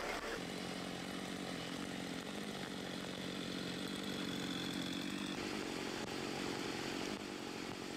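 A small engine running at a steady pitch, over the steady hiss of heavy rain.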